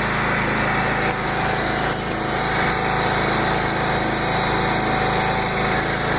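Small engine running steadily at a constant speed, with no revving.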